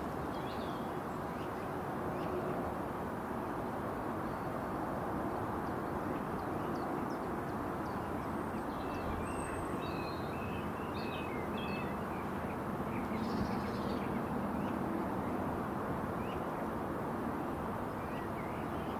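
Small birds chirping on and off, mostly in the middle stretch, over a steady outdoor background rumble.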